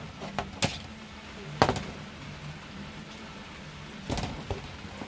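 Sharp plastic clicks and knocks from a small plastic tripod's legs being handled and folded: one about half a second in, a louder one after about a second and a half, and a quick cluster about four seconds in, over a faint steady low hum.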